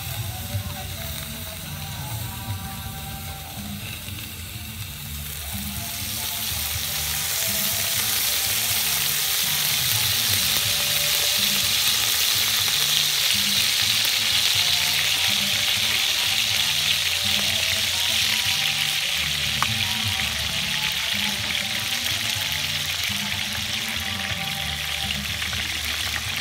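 A pot of chicken in liquid sizzling on a wood fire: a hiss that swells from about six seconds in and eases off toward the end, under background music.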